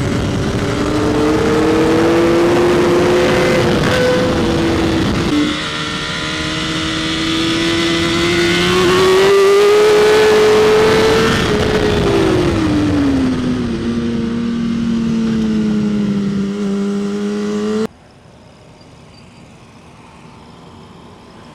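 BMW S1000RR's inline-four engine running hard on track, with a steady rush of wind noise; the engine note breaks at a gear change about five seconds in, then falls and settles lower as the bike slows. Near the end it cuts off suddenly to a much quieter background.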